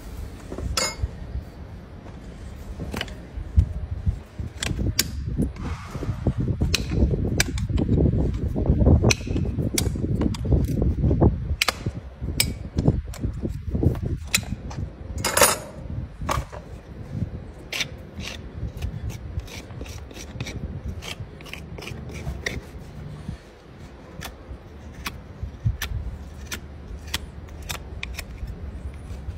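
Farrier's tools on a horse's hoof: a steel horseshoe being pried loose, then the sole pared with a hoof knife. Many sharp metal clicks and scrapes, over a low rumbling handling noise that is heavier in the first half.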